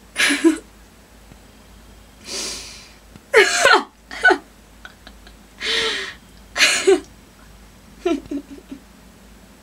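A woman crying with emotion: short voiced sobs and sharp breathy intakes of breath in a series of separate bursts, muffled in part by a hand held over the mouth.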